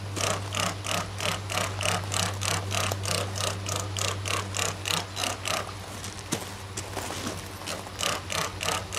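Hand trigger spray bottle pumped rapidly onto socks and boots, about three to four short squirts a second, each a quick click and spritz. The spraying stops for a couple of seconds past the middle and starts again near the end.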